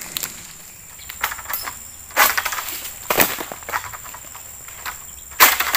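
Footsteps on dry fallen palm fronds and leaf litter: a handful of uneven steps, the loudest near the end, over a steady high-pitched insect buzz.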